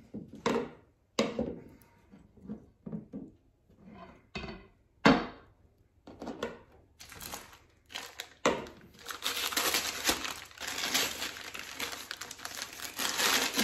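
Scattered knocks and rustles, with one sharp knock about five seconds in, then continuous crinkling of paper wrapping being pulled off a wooden scabbard from about nine seconds in.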